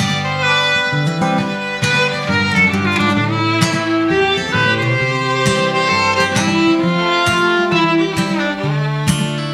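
Fiddle playing a melodic instrumental break, with long bowed notes that slide between pitches, over a strummed acoustic guitar.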